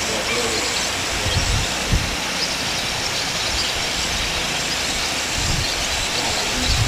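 Steady hiss of outdoor background noise, with a few short low rumbling bumps about a second and a half in, around five and a half seconds and near the end.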